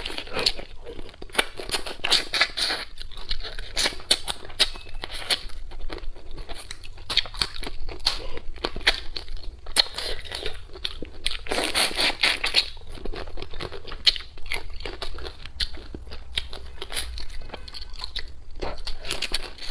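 Close-miked mouth sounds of a person eating spicy crayfish: sucking at the shells, lip-smacking and chewing, with dense irregular clicks and crackles. Two louder bursts come about a second in and again about twelve seconds in.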